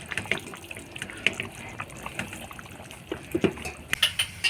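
Water splashing and trickling, with many small irregular clicks and knocks.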